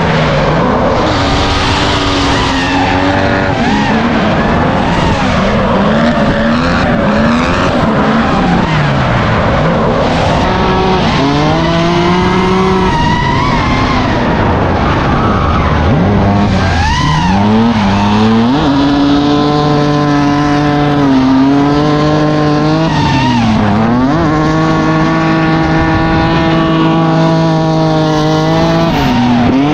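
Drift cars' engines revving hard, the pitch swooping up and down and then held high for several seconds at a time with brief dips, over the hiss and squeal of sliding tyres.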